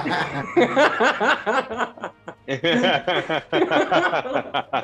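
Men laughing together, a run of chuckles and snickers that breaks into quick short bursts near the end.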